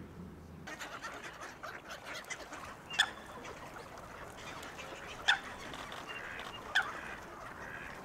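Waterfowl on a pond calling: three short, sharp calls a second or two apart, over faint background chatter from the birds.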